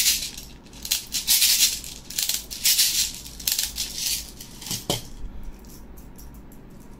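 Loose plastic airsoft BBs rattling in a container, shaken in repeated bursts for about five seconds, then a few faint clicks.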